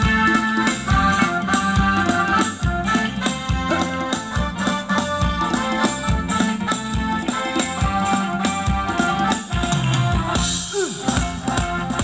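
Live band playing Thai ramwong dance music: electric keyboard over a drum kit with a steady beat.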